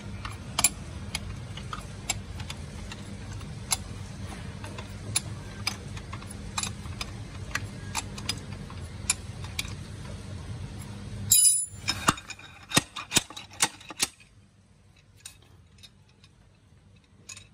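Sharp metallic clinks of a slide-hammer bearing puller working a ball bearing out of a motorcycle engine case, about one every second and a half over a steady low hum. About eleven seconds in comes a louder burst of metal clatter, the hum stops, and a few scattered clinks follow before it goes quiet.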